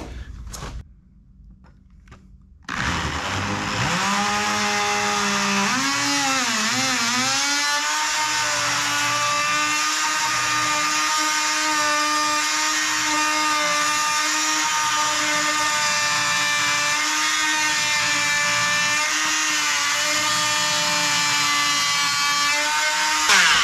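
Corded oscillating multi-tool with a sharp plunge blade cutting vertical depth cuts into a wooden hull plank. It starts about two and a half seconds in, its pitch dips and wavers for a moment as the blade bites in, then it runs steadily and stops just before the end.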